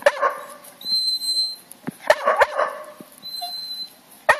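A dog giving short, high vocal sounds in three brief bursts about two seconds apart.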